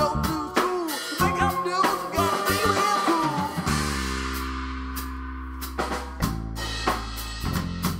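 Indie rock band music with a drum kit playing. Busy playing gives way a little over three seconds in to a long held chord under scattered drum hits, with a low bass note coming in near the end as the song winds down.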